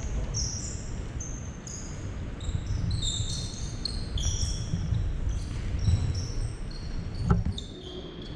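Basketball sneakers squeaking again and again on a hardwood gym floor, over low thuds of running feet and a dribbled ball. There is a single sharp bang about seven seconds in.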